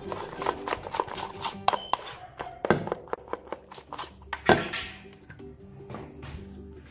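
Background music over a plastic spoon stirring thick, foamy slime mixture in a stainless steel bowl, clicking and knocking against the metal, with a louder knock near the middle.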